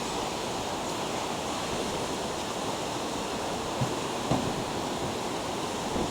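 Steady rushing of high ocean surf breaking below a pier.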